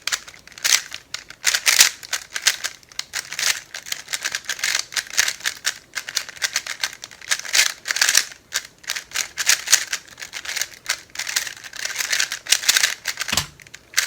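3x3 speedcube being turned very fast during a speedsolve: a dense, rapid clicking and clacking of plastic layers. It stops with a low thump near the end.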